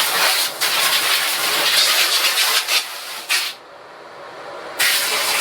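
Water jet from a battery-powered portable spray washer hissing as it rinses out screen-printing screens. The spray stops for about a second a little past the middle, then starts again.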